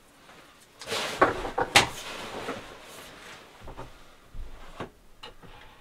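Close handling noise: a rush of rustling with two sharp clicks about a second in, followed by a few lighter knocks and clicks.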